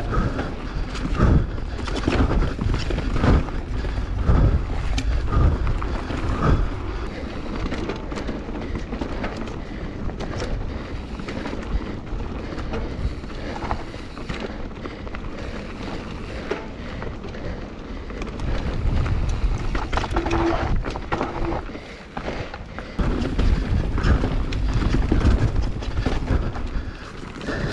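Mountain bike riding down a dirt trail, heard from the bike or rider: tyre noise and low rumble with frequent knocks and rattles as it rolls over bumps, quieter through the middle and louder again towards the end.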